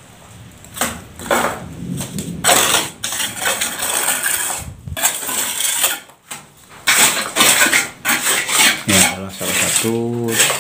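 Steel plastering trowel scraping and spreading cement mortar across a wall in irregular strokes, with metallic scrapes of the trowel against the mortar board. A man's voice speaks near the end.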